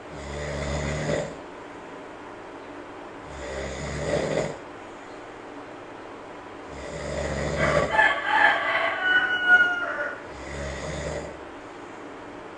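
A sleeping monkey snoring in slow, regular breaths, four in all, about three and a half seconds apart. Around the third breath comes a louder burst of high, pitched, gliding calls lasting about two seconds.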